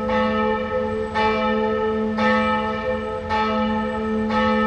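Church bell tolling, struck about once a second, each stroke ringing on with a long low hum beneath it.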